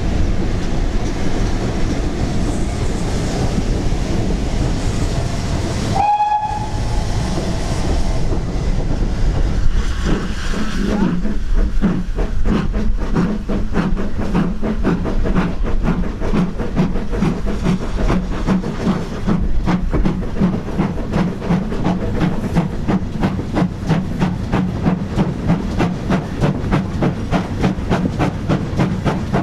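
Steam train working away with a steady rumble, then a short steam whistle about six seconds in. From about eleven seconds, a GWR 'Hall' class 4-6-0 steam locomotive chuffs past close by, its exhaust beats in a steady, even rhythm.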